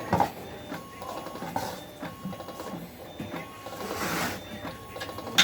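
Scratchy strokes of a colouring tool rubbing across paper, uneven and intermittent, with a swell of hissy scraping about four seconds in and a sharp tap near the end.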